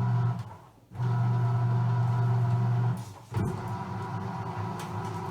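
Washing machine, one said to be on the verge of breaking down, running with a loud low motor hum that comes in runs of about two seconds and briefly cuts out between them, as when the drum is driven back and forth during washing.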